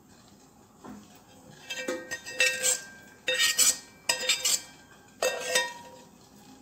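Perforated steel ladle scraping and clinking against a stainless-steel pan, scraping out the last of the melted jaggery syrup. It comes in four short bursts, and the pan rings after each.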